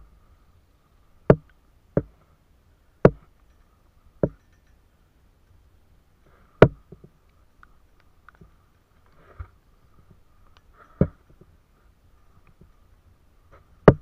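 Sharp, short knocks on a small canoe as it is handled, about seven at uneven intervals, over a faint steady high hum.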